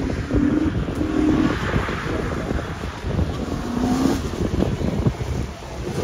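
A drifting car's engine, heard through heavy wind buffeting on the microphone as the car slides sideways across a wet track.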